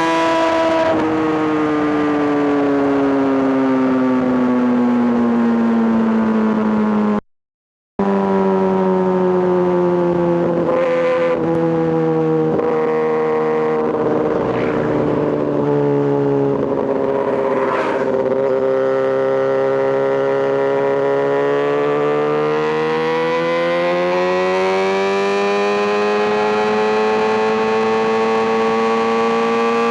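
Kawasaki ZX-6R inline-four engine running continuously, its pitch sinking slowly over the first several seconds, then holding low before climbing steadily again in the last third. The sound drops out completely for under a second about seven seconds in.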